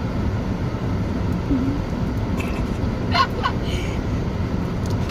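Steady low rumble of a car's running engine heard inside the cabin.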